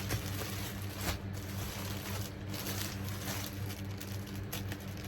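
Rustling and handling noises of a parcel being unpacked, scattered short rustles and clicks, over a steady low electrical hum in the room.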